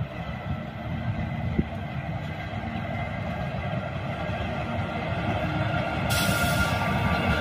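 Indian Railways WAP-4 electric locomotive hauling a passenger train, approaching and passing: steady running noise with a whine, growing louder. A loud hissing rush joins about six seconds in as the locomotive draws close.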